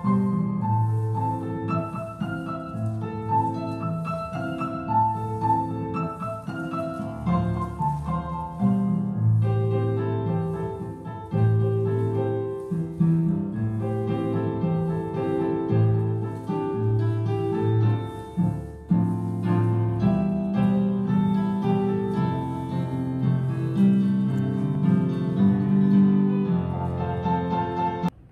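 Piano music accompanying ballet exercises at the barre, played as a continuous flow of notes and chords.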